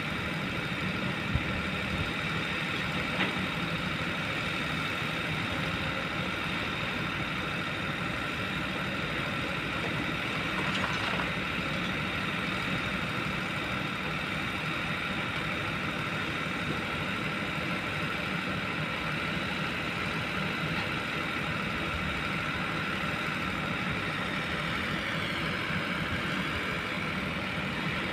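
Kobelco long-boom excavator's diesel engine running steadily, with a high steady whine over it. A few light knocks come in the first seconds, and the whine dips in pitch near the end.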